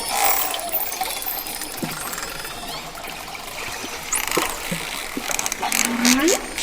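Dolphin whistles over a steady wash of water noise: a few short rising whistles, one sweeping up from a low pitch near the end, with runs of rapid clicks in the last second.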